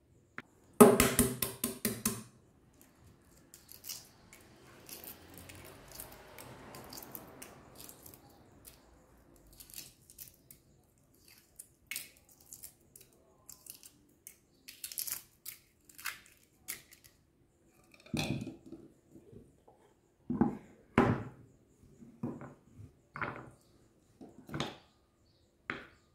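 Knife and eggshell handling sounds from hard-boiled eggs: a knife cutting through an egg and knocking on a wooden cutting board, loudest as a quick run of knocks about a second in. Then scattered clicks and crackles as eggshell is peeled off over a stainless steel pot, and a further series of knocks near the end.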